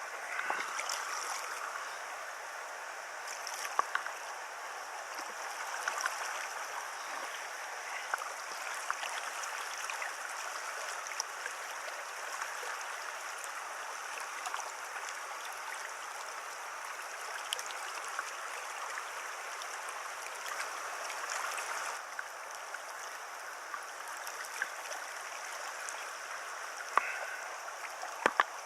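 River water rushing steadily over stones in a shallow stream, with a few brief sharp clicks near the start and twice near the end.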